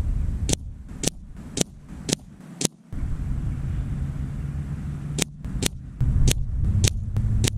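Shots from a .177 sub-12 ft/lb Air Arms S510 air rifle firing slugs into a paper target: sharp snaps about half a second apart, five in a row, a pause, then about five more. A low wind rumble runs underneath.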